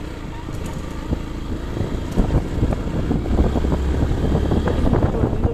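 Vehicle driving over a rough, rocky dirt track: engine running low, with frequent knocks and rattles as it goes over the bumps.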